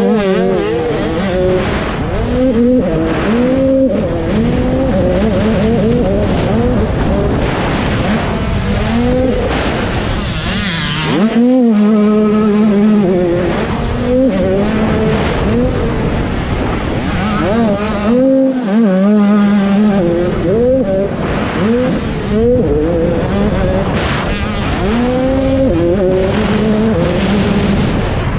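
Dirt bike engine heard on board, revving hard and rising and falling in pitch again and again with throttle and gear changes while racing. The engine note cuts out briefly twice, about 11 and 18 seconds in.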